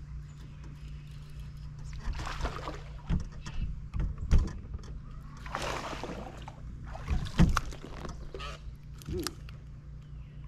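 A hooked bass splashing at the surface in several short bursts as it is reeled to the boat and lifted out, over a steady low hum.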